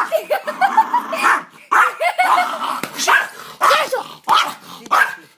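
Small long-haired dog barking angrily in a rapid string of short barks, about two a second, with yipping between them.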